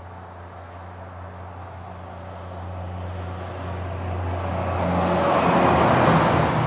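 Heavy truck approaching and passing at highway speed: a low engine drone under rising tyre and road noise that builds steadily to a peak about six seconds in, then starts to fade.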